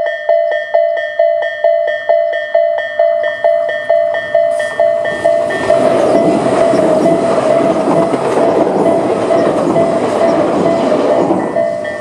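Level-crossing warning bell with Tobu's 'sound A' electronic tone ringing steadily about twice a second. From about five seconds in, a Tobu 200 series electric train passes through the crossing, its wheel and running noise nearly burying the bell. The bell rings out clearly again once the train has gone, near the end.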